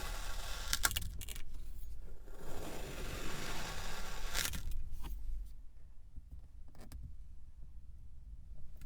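Kinetic sand being worked by hand or tool: grainy scraping and crumbling rustles with a few sharp clicks. The sound grows quieter about halfway through.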